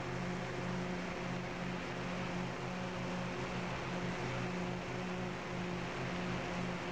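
DJI Phantom 2 quadcopter's motors and propellers humming steadily in flight, a few fixed low tones over an even hiss of rushing air.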